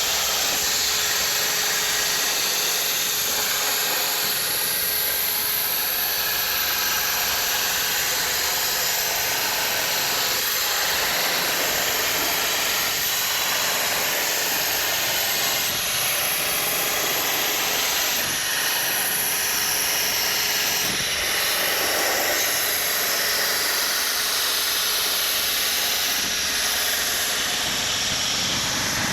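CNC plasma cutter's torch cutting steel plate, giving a steady, even hiss.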